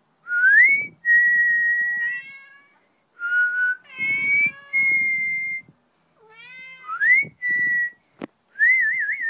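A person whistling short notes, some rising and some held steady, ending in a warbling trill, answered by three meows from a Maine Coon cat between the whistles. A single sharp click comes near the end.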